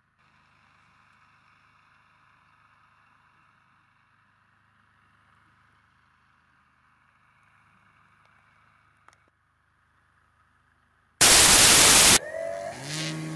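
Near silence with a faint hiss, then about eleven seconds in a loud one-second burst of static white noise, a glitch transition sound effect. Music starts right after it.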